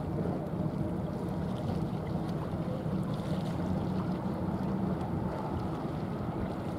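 Steady low drone of a small coastal cargo ship's diesel engine as it passes under way, with water wash and wind on the microphone.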